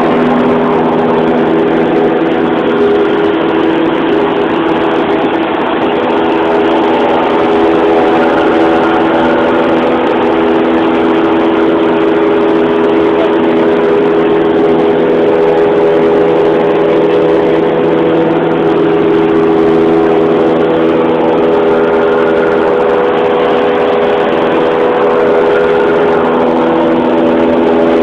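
Light aircraft's piston engine and propeller running steadily at climb power, heard from inside the cabin.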